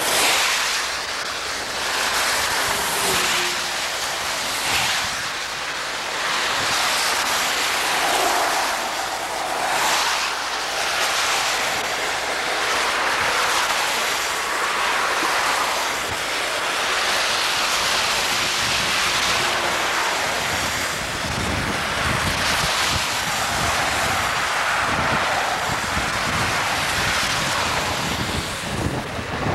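Traffic on a wet highway, the tyres of each passing vehicle hissing by in a swell every couple of seconds, with wind buffeting the microphone. More low rumble joins in over the last third.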